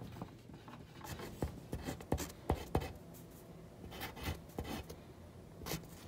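Wooden pencil writing on paper in short scratchy strokes, with a few sharp ticks of the lead on the page.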